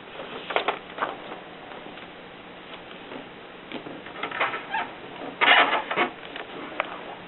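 Olympia Splendid manual portable typewriter clacking: irregular sharp mechanical strokes in small groups, with the loudest, densest cluster about five and a half seconds in.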